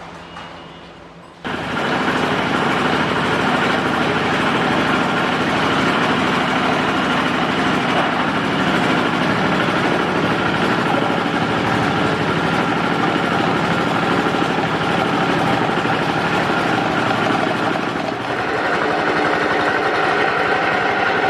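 Pellet-making machine starting suddenly about a second and a half in and running steadily and loudly, with a brief dip in level near the end.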